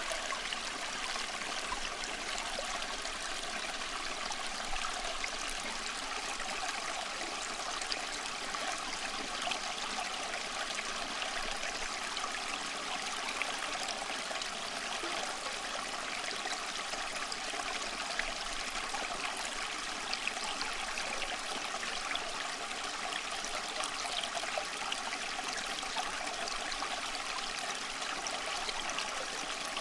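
Steady, even rushing sound like running water, with no pauses, beat or clear tone.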